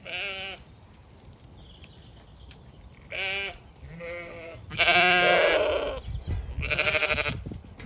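Zwartbles sheep bleating: four quavering bleats, the longest and loudest about five seconds in.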